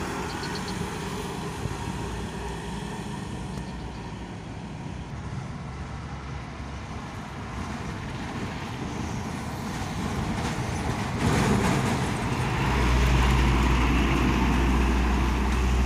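Diesel trucks passing on a road. A light box truck's engine fades at first, then a Hino cargo truck's diesel engine grows louder and passes close, with a deep, heavy rumble in the last few seconds.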